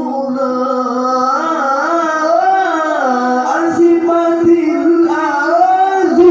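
A man's voice reciting the Qur'an in melodic tilawah style over a microphone, in long ornamented phrases that climb to a higher held note about halfway through.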